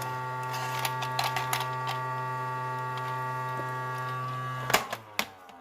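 Pororo Melody kids' toy vacuum cleaner's small electric motor running with a steady hum and scattered clicks. Near the end it cuts off with a click and winds down, its pitch sliding downward.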